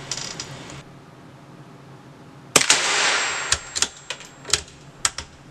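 Suppressed Anschütz 1416 .22 LR bolt-action rifle fires one shot about two and a half seconds in: a sharp crack with a short ringing echo off the indoor range. It is followed by a quick run of metallic clicks as the bolt is worked to eject the case and chamber the next round.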